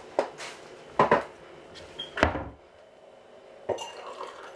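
Knocks and bumps of things being handled and set down in a kitchen, with a cupboard or drawer shut among them: about five separate knocks, the loudest a little past two seconds in.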